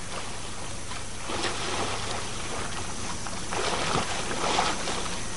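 Pool water sloshing and gently splashing as a swimmer does a butterfly body-wave drill, with a faint steady hum underneath.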